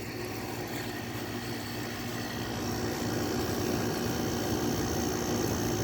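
Window air conditioner running: a steady compressor and fan hum that grows a little louder partway through, with a faint high whine joining about two and a half seconds in.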